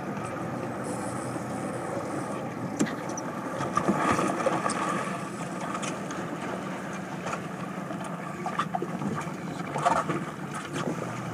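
A small motorboat's engine idles with a steady low hum, while water laps and splashes against the hull. A few short louder splashes or knocks come through, one about four seconds in and one near the end.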